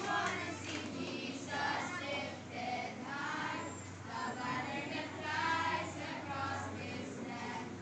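Children's choir singing together, heard from among the audience in the hall.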